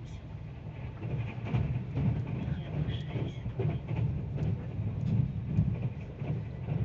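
Hyundai InterCity+ electric train running, heard from inside the carriage: a steady low rumble that swells and dips, with scattered short knocks.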